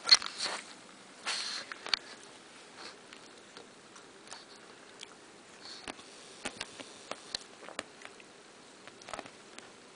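Six-week-old Maltese puppies moving about on bedding in a wire pen: two short breathy sniffing bursts in the first two seconds, then soft rustling and scattered light clicks.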